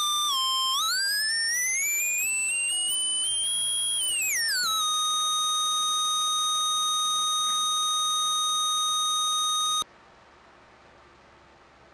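Electronic test tone with overtones, gliding in pitch: a short dip, a slow rise to a much higher note about four seconds in, a quick drop back, then one steady high note that cuts off suddenly near the end.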